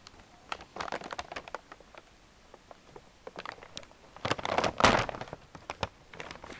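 Crackling, rustling handling noise with scattered clicks and knocks, densest and loudest a little past the middle.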